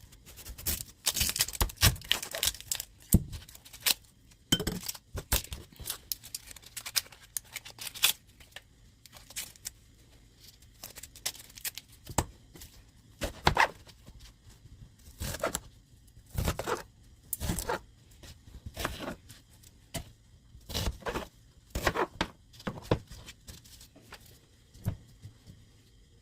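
An onion being cut up with a knife on a chopping board: irregular crisp slicing strokes and sharp taps of the blade on the board, coming thick and fast in the first few seconds and then more spaced out.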